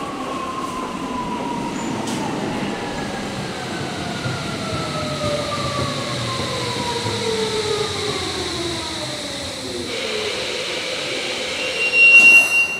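Tokyo Metro 17000 series train braking to a halt: its full-SiC MOSFET VVVF inverter and permanent-magnet traction motors give several whining tones that fall steadily in pitch as it slows. Near the end there is a brief louder burst with a short, sharp high squeal.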